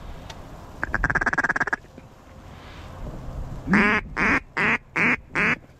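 Mallard hen duck call blown to coax a single passing duck in: a quick rapid chatter about a second in, then five loud quacks in a row near the end, the first the longest.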